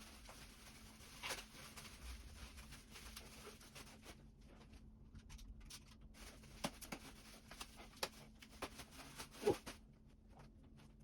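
Faint rustling and handling of bike packaging, with scattered light clicks and knocks; the loudest knock comes about nine and a half seconds in.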